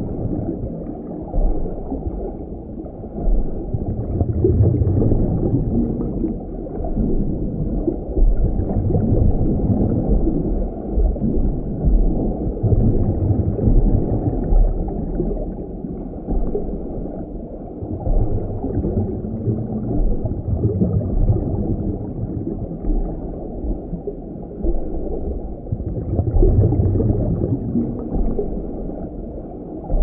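Underwater ambience: muffled, low rushing water noise heard through an underwater microphone, swelling and ebbing every few seconds.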